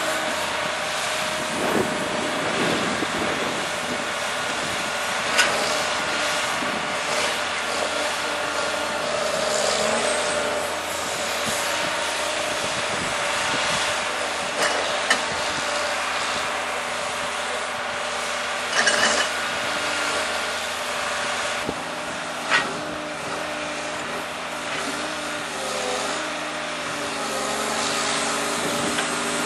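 Cat 584 forwarder's diesel engine running steadily while its hydraulic crane loads logs, with a steady mechanical tone that shifts slightly in pitch. A handful of sharp knocks, from logs and the grapple striking as they are handled, stand out over it.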